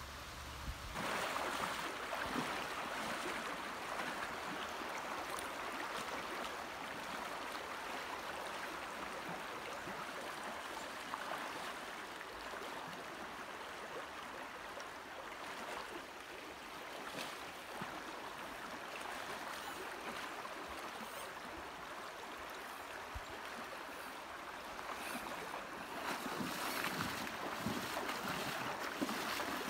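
Shallow river current rushing steadily over a rocky riffle, heard close to the water; it grows louder about a second in and again near the end.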